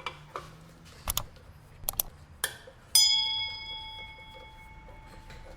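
Sharp metal clinks and taps of tools on car parts, then a hard metal strike about three seconds in that rings with a clear bell-like tone, fading over about two seconds.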